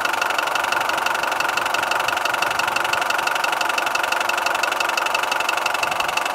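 Mitsubishi 4D56 turbo diesel running with a high-pitched metallic knock repeating evenly with the engine. The knock turned out to come from valve timing knocked out of step: a damaged crankshaft keyway let the crank pulley slip by a small angle.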